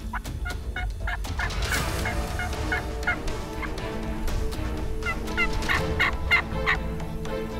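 Osceola wild turkeys gobbling and calling: two runs of short, evenly spaced notes, about three a second, the first about a second in and the second about five seconds in.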